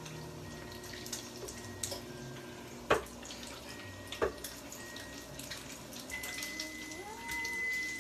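A knife chopping through banana onto a cutting board: two sharp knocks about three and four seconds in, with a few lighter taps, over a low steady hiss.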